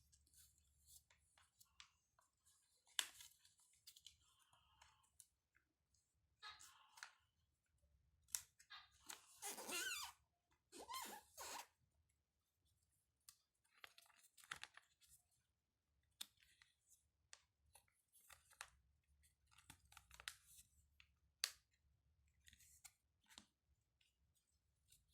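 Faint, intermittent rustling, snipping and clicks of paper being handled and cut with scissors.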